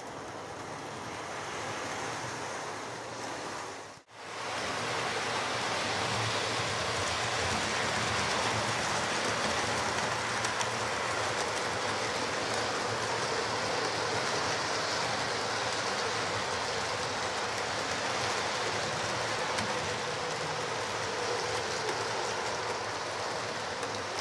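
Model Class 43 (InterCity 125) trains running on a model railway layout: a steady rattle and hum of wheels on the track and small motors. The sound cuts out briefly about four seconds in, then carries on.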